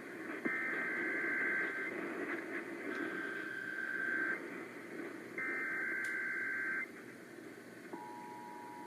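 Emergency Alert System header tones off a radio broadcast: three warbling digital data bursts of about a second and a half each, then, near the end, the steady two-tone EAS attention signal begins. Static hiss of AM radio reception lies under it all.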